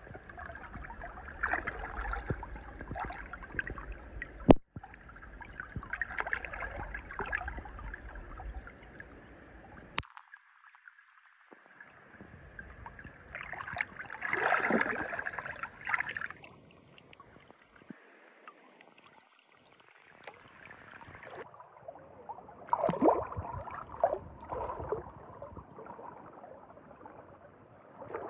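Shallow river water splashing and trickling in several short spells, with one sharp, loud knock about four and a half seconds in.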